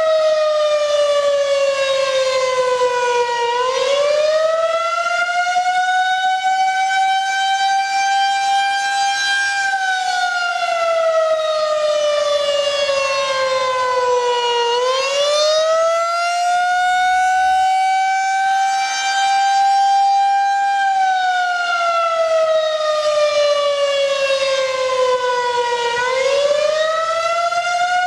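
Federal Signal 2001-SRN rotating outdoor warning siren sounding the attack signal: a loud, high-pitched wail that climbs quickly, holds near the top, then slowly slides back down, repeating about every 11 seconds.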